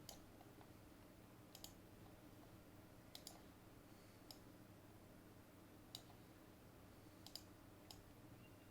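Faint computer mouse clicks, about eight spread unevenly, a few in quick pairs like double-clicks, over a low steady hum.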